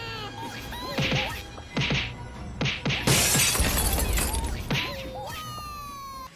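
Wrecking ball striking a car: a few sharp whacks, then a loud crash with shattering glass about three seconds in. Cartoon sound effects with sliding, rising-and-falling tones and music play over the impacts.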